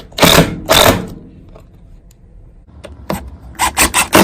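Short scraping strokes: two in the first second, a quieter stretch, then a quick run of about five from about three seconds in.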